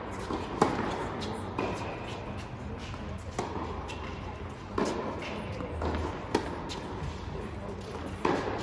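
Tennis serve struck hard about half a second in, the loudest hit, followed by a rally of racket strikes on the ball and ball bounces on the court, each with a short echo in a large indoor tennis hall.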